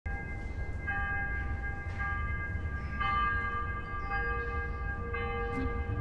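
Church bells ringing, struck several times with long sustained ringing tones that overlap, over a steady low rumble.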